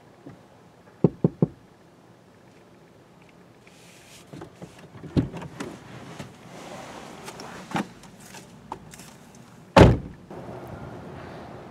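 Three quick knocks about a second in, then the clicks and rustling of a car door being opened and someone climbing out, and the car door slamming shut near the end, the loudest sound; a steady background hiss follows.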